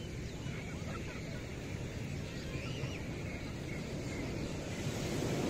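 Beach ambience: a steady wash of surf and wind noise, with faint, high, wavering calls over it.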